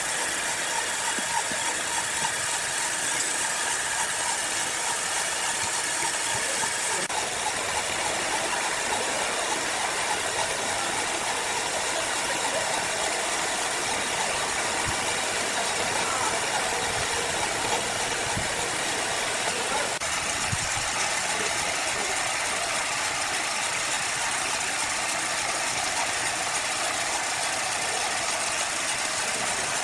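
Sawmill machinery running steadily, a continuous motor-and-saw noise at an even level.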